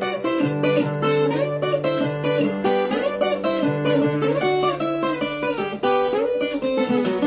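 Brazilian viola caipira, a ten-string guitar, played solo with fast fingerpicked notes moving up and down over a low bass note that is held and repeated.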